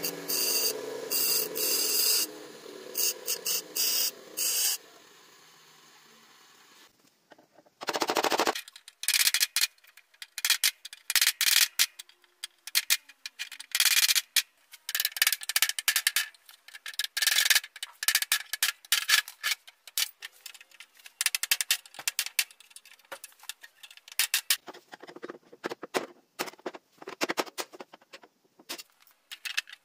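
Bench grinder wheel grinding a steel screwdriver tip in several short bursts, with the motor running on and fading afterwards. Then a sharpened screwdriver, driven by hand and by a hammer, cuts and scrapes out the moulded plastic dividers of a plastic tool case in a quick run of sharp knocks, clicks and scrapes.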